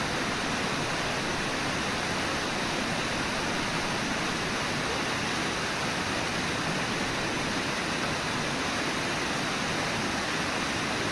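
Waterfall and river rapids rushing steadily, an even hiss with no breaks or changes.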